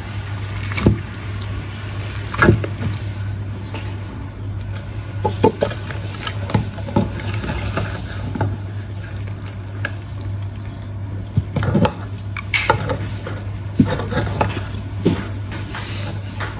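A knife and a slotted metal spatula scrape and click against a baking dish as a portion of baked pasta is cut and lifted out. The pasta squishes softly, and a steady low hum runs underneath.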